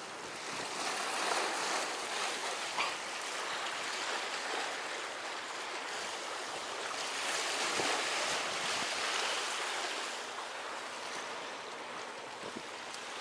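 Sea waves washing and sloshing among concrete breakwater tetrapods: a steady rushing wash that swells gently twice.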